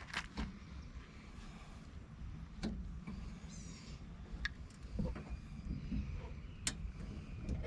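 Scattered sharp clicks and clinks of hands and small parts at work on a Jeep's antenna base mount, over a steady low rumble. A short high falling chirp comes about three and a half seconds in.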